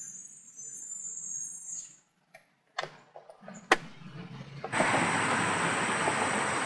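Camcorder tape audio with a few sharp clicks and short dropouts where the recording cuts. About five seconds in, a loud, steady rushing noise suddenly begins over an outdoor roadside scene.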